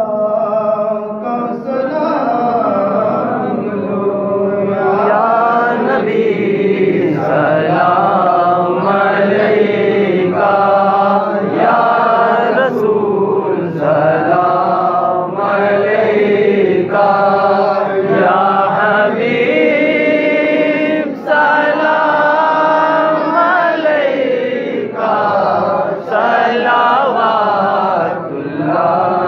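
A man chanting a devotional Salaam without instruments into a microphone, in long melodic phrases of a few seconds each with short breaks for breath.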